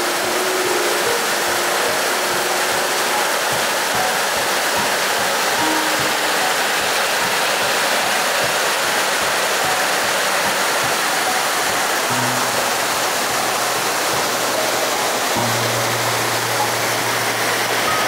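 Steady rush of a mountain stream's water running over rocks, with soft background music underneath; a few held low notes come in about two-thirds of the way through.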